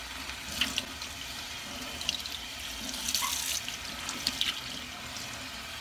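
Kitchen faucet running into a stainless steel sink while a wet tie-dyed shirt is squeezed and rinsed under the stream to wash out excess dye, with a few short splashes.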